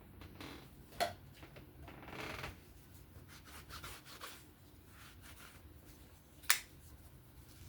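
Small metal parts of a folding knife and its tools being handled at close range: two sharp clicks, one about a second in and one near the end, and a short rubbing scrape about two seconds in.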